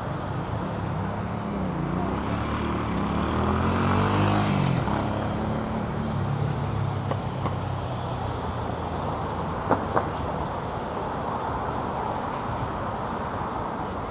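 City street traffic: steady engine and road noise, with one motor vehicle passing close about four seconds in, its engine note falling as it goes by. Two sharp clicks come a little before the ten-second mark.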